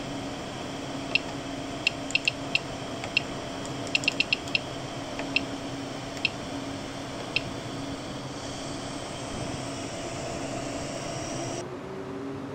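Wanhao 3D printer's menu buzzer giving short, high clicking beeps, singly and in quick runs, as its rotary control knob is turned and pressed, over the steady hum of the printer's fans. Near the end a tone starts rising in pitch.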